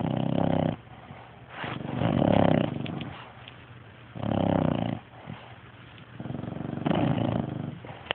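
Sleeping pets snoring: four long snores at roughly two-second intervals, with quieter breathing in between.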